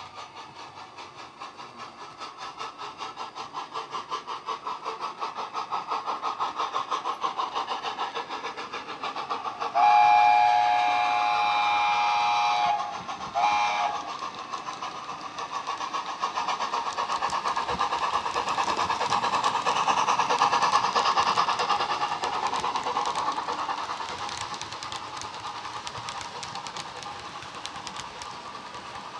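Model steam locomotive's DCC sound decoder (SWD A4 sound file) through a bass-enhanced speaker: steady rhythmic chuffing that grows louder as the loco approaches, then fades near the end. About ten seconds in it gives a long chime whistle, followed by a short second blast.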